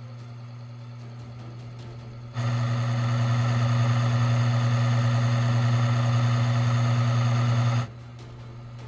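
Oil film-strength test rig running: its electric motor hums steadily as the steel wheel spins through oil against a loaded bearing. About two and a half seconds in, during the run lubricated with STP oil, the sound turns much louder and rougher, with a grinding, whining noise over the hum. It drops back to the quieter hum near eight seconds in.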